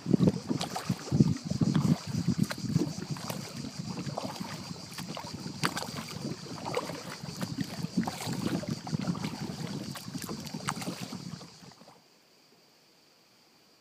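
Double-bladed paddle dipping and splashing as an inflatable canoe is paddled on a river, with irregular splashes, drips and knocks. The sound cuts off suddenly near the end.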